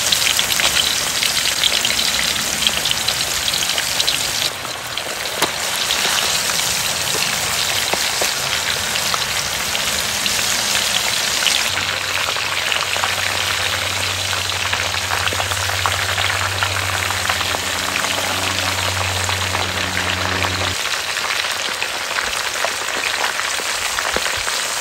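Whole quails deep-frying in a wok of hot oil, par-fried before the air fryer: dense, steady sizzling and crackling. A low hum runs under it for about nine seconds in the middle.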